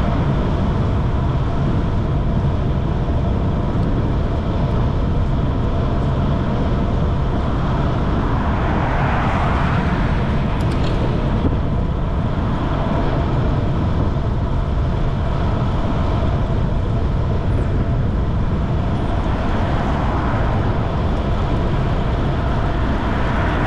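Steady wind rush and tyre noise from a road bike riding at about 20 mph. About nine seconds in, a passing car's tyre noise swells and fades, and a fainter vehicle swells near the end.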